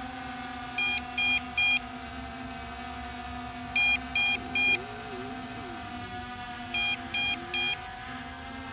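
Low-battery warning of the MJX Bugs 5W quadcopter: three short high beeps every three seconds over a steady hum. The alarm is set off with the flight battery only at about half charge.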